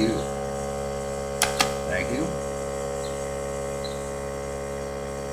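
Small electric air compressor running with a steady hum. About one and a half seconds in, a hand-held mechanical tally counter clicks twice in quick succession as its lever is pressed and released, advancing the count by one.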